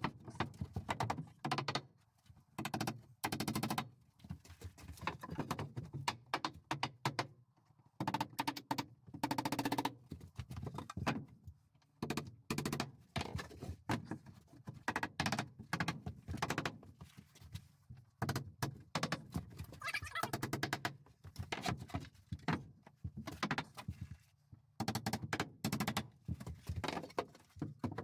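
Irregular knocks and thuds of wooden wall boards being handled, fitted and tapped into place.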